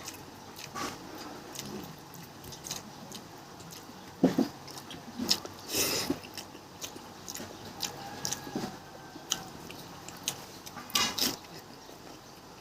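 A person eating fish close to the microphone: irregular chewing, lip smacks and small clicks, with a few louder smacks about four, six and eleven seconds in.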